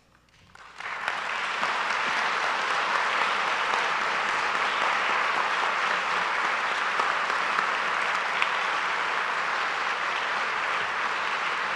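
Audience applauding, the clapping rising within the first second and then holding steady.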